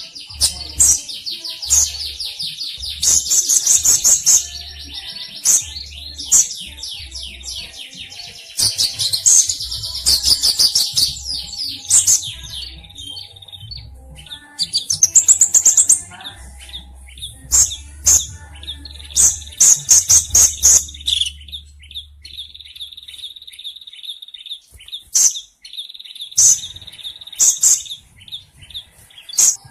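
Sunbird (kolibri ninja) singing a fast, high-pitched chattering song of rapid chirps and trills in repeated bursts, with short pauses between phrases.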